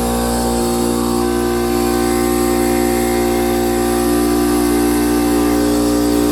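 Coleman Powermate 11-gallon air compressor running steadily, its electric motor and pump just switched on and filling the tank.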